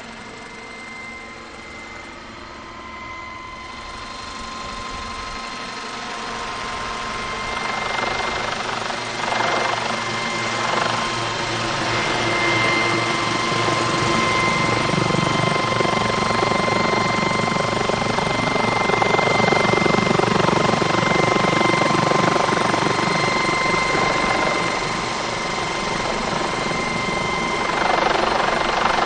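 Radio-controlled scale model Bell 222 helicopter: rotor whir with a steady high whine, getting louder as it approaches for about the first twelve seconds, then hovering close by. The sound is played back at half speed, so it is slowed and lowered in pitch.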